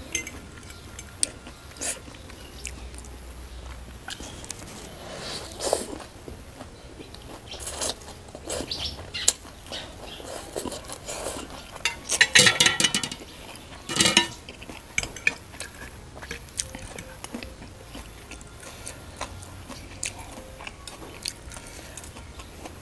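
Close-miked eating: a metal fork and spoon clinking and scraping on a plate, with chewing of noodles. Mostly scattered short clicks, with a louder burst about twelve seconds in.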